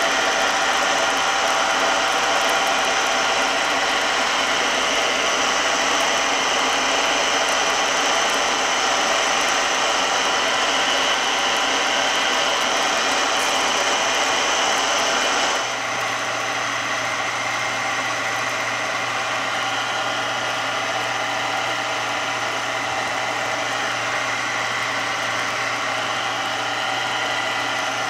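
Milling machine running, its cutter milling a helical groove in a brass shaft, with a steady whine of many fixed tones. A little past halfway the sound changes abruptly, becoming slightly quieter and duller with a steady low hum.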